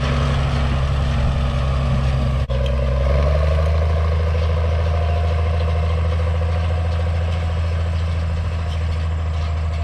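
Farm tractor engine running steadily. About two and a half seconds in, its note briefly breaks and then settles at a lower pitch.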